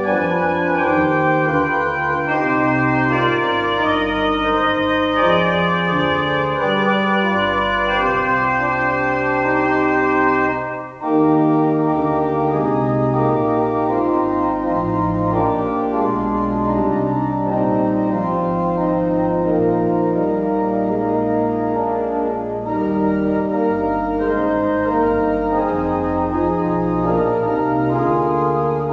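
Church pipe organ playing a chorale prelude: full, sustained chords with moving inner and bass lines. There is a brief break between phrases about ten seconds in.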